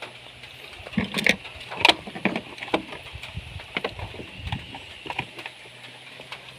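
Irregular light clicks and knocks, a few a second, over a faint steady hum.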